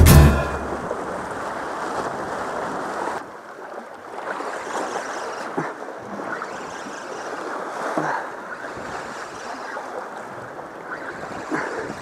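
Sea water washing and lapping against shoreline rocks, with wind noise on the microphone. The hiss drops away abruptly about three seconds in.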